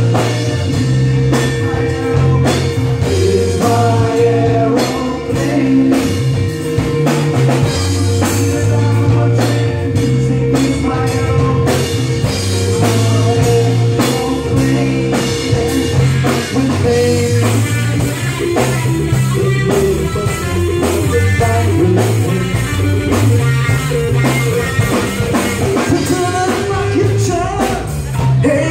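Live three-piece rock band playing loudly: electric guitar, electric bass and drum kit, with a long high note held steady through the first half.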